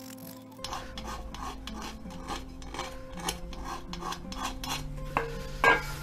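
Hand file rasping back and forth along the rough, grinder-cut edge of an iron lid, deburring it, at about three strokes a second, with one louder stroke near the end.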